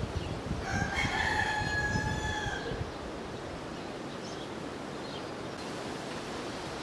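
A rooster crows once, a single call of about two seconds starting just under a second in.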